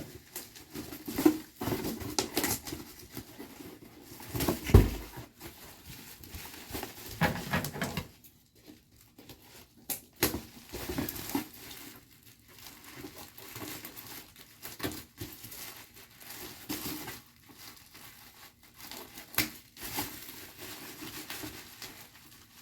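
Parcel packaging being torn open and crinkled by hand, with irregular rustles and knocks; the loudest is a thump about five seconds in.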